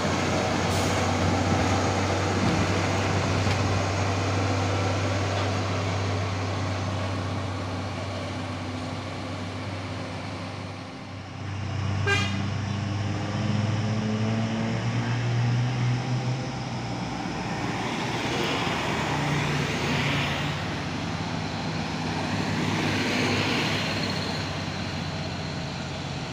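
Heavy diesel truck engines labouring on a steep climb: a steady low engine drone, then after a sharp click about twelve seconds in, a truck engine rising in pitch as it revs under load.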